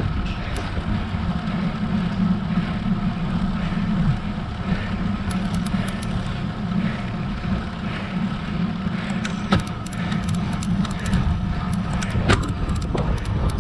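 Steady low rumble of wind on a GoPro's microphone and road-bike tyres on tarmac while riding, with scattered light clicks, more frequent in the second half.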